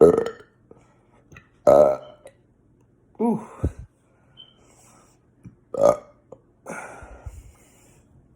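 A person burping repeatedly: about five loud burps a second or two apart. The third has a wavering pitch, and the last is weaker and drawn out.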